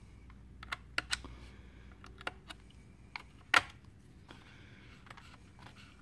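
Scattered small clicks and taps of a laptop RAM module and its retaining clips being handled while it is taken out of its slot, the loudest click about three and a half seconds in.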